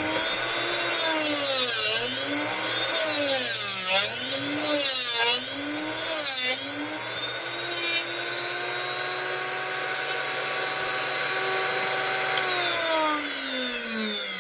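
Drill Doctor drill bit sharpener running, regrinding a broken bit. In the first eight seconds there are about five bursts of harsh grinding, the motor's pitch dipping with each as the bit is turned against the wheel. It then runs steadily and winds down near the end, falling in pitch.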